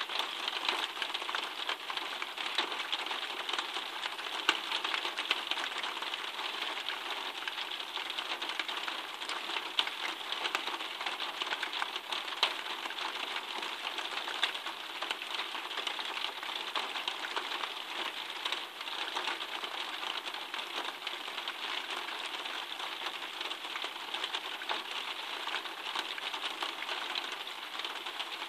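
Steady rain falling in a garden, a constant hiss of drops thick with small, sharp ticks as they strike nearby surfaces.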